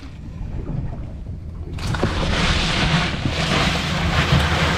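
A mutton snapper being pushed into crushed ice in a boat's fish box: a rush of shifting-ice noise starts about two seconds in and lasts close to three seconds, over a low steady hum.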